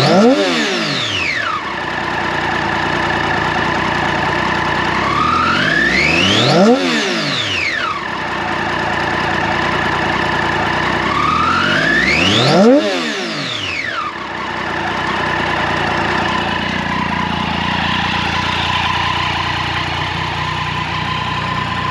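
Triumph Daytona 675R's 675 cc inline three-cylinder engine blipped three times in neutral, about six seconds apart, each rev climbing in pitch and dropping quickly back to idle. It then settles to a steady idle.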